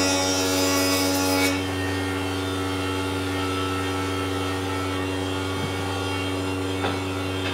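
Jointer running, its cutterhead planing the edge of a wooden board for about the first second and a half, then spinning freely with a steady hum.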